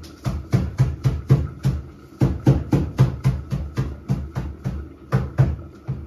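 Scallion and thyme being beaten to bruise them and bring out their flavour: a run of hard thuds about four a second, with two short breaks, stopping near the end.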